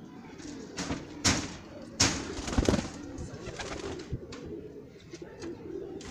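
Domestic fancy pigeons cooing steadily in a loft, broken by a few loud, sharp clatters about one to three seconds in.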